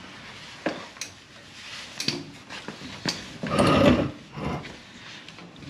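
Scattered light clicks and knocks of handling, with a longer scraping rustle about three and a half seconds in.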